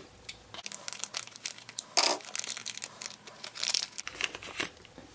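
Small plastic blind bag crinkling in the hands as it is torn open, in short irregular bursts, loudest about two seconds in and again near four seconds.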